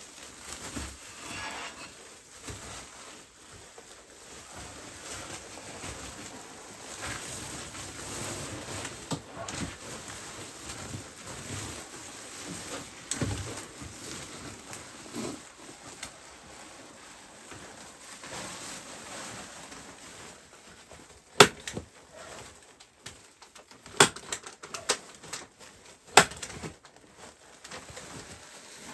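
Foil-faced insulation sheet crinkling and rustling as it is handled and pressed against a log wall. Near the end come several sharp, separate knocks, a second or two apart.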